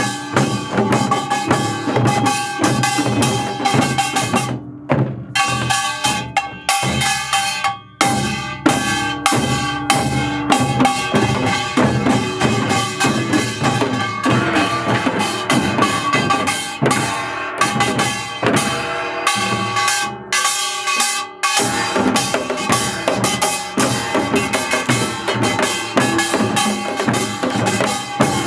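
Music with a drum kit and percussion, with short breaks where the beat drops out a few times.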